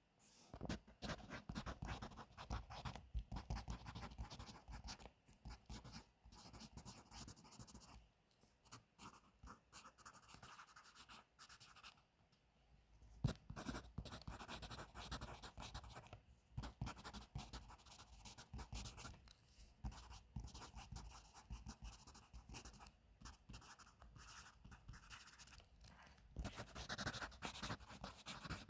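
Pencil writing on paper: dense, irregular scratching strokes with brief pauses about eight and twelve seconds in, and one sharp tap about thirteen seconds in.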